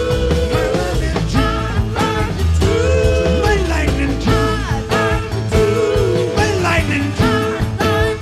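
Live rock band playing: a lead line that bends and glides in pitch over steady bass and drums.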